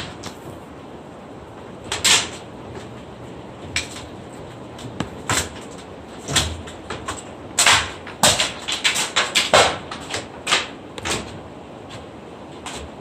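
Construction work on wooden roof framing: irregular sharp knocks and bangs of timber being struck or handled, with a quick run of strikes about eight to ten seconds in.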